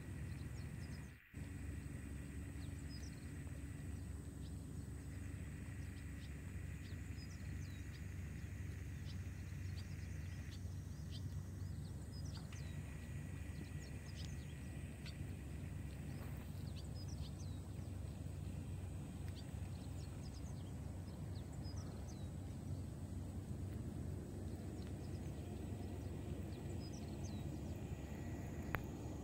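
A cat eating wet food from a metal tray: faint, irregular wet clicks of chewing and licking over a steady background hum.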